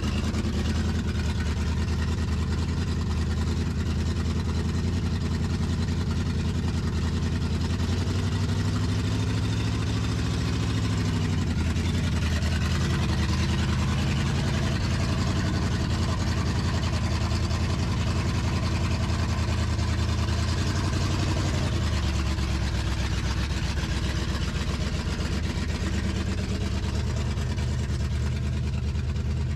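Car engine idling steadily, running again after a failed starter was replaced; its note shifts slightly about a third and two-thirds of the way through.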